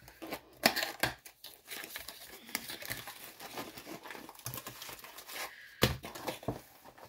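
Plastic shrink-wrap being torn and crinkled off a diamond-painting kit box by hand, with a few sharp knocks among the rustling, the loudest about six seconds in.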